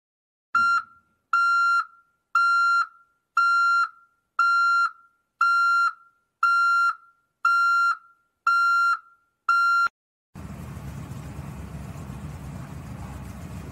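An electronic beep repeating ten times at an even pace of about once a second, each beep a single steady high tone lasting about half a second. After the beeping stops, a steady low rushing noise follows.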